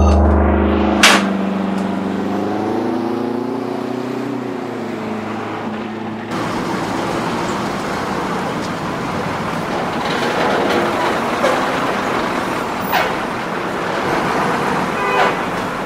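Bus and street traffic: an engine hum that rises and falls in pitch, with a sharp click about a second in, then, about six seconds in, denser traffic noise with a few faint knocks.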